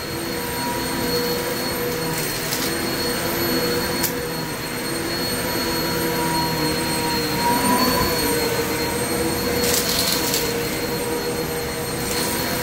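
Kenmore upright vacuum cleaner running steadily with a high motor whine, sucking up wood chips. A few brief crackles come as chips are pulled in, about two and a half, four and ten seconds in.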